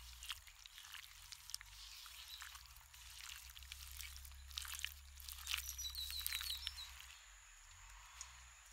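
Faint wet food-preparation sounds: soft drips, squelches and small clicks of food and water being handled. About six seconds in there is a short run of high chirps.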